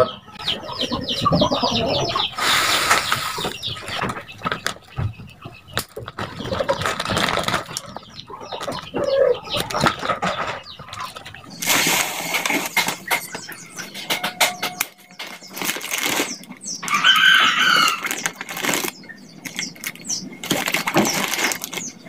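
Plastic bags crinkling and rustling in irregular bursts, with styrofoam packing beads shifting and clicking in a cardboard box as the bags are pulled out of them.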